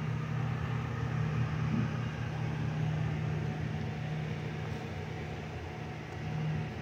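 Cadillac 500 V8 engine idling with a steady low hum.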